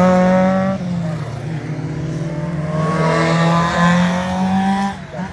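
Two race cars' engines pass one after another at formation-lap pace. Each engine note swells and fades as the car goes by, over a steady low drone of other engines.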